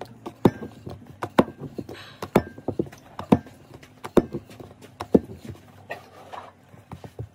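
Wooden rolling pin knocking and clacking on a round board while rolling out momo dough wrappers, with a sharp knock about once a second and lighter taps between.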